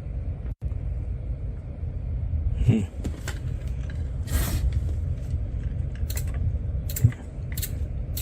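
Relay on a Mitsubishi mini split control board clicking several times, sharp and irregularly spaced, after power is switched off while the board's DC supply discharges. A steady low hum runs underneath.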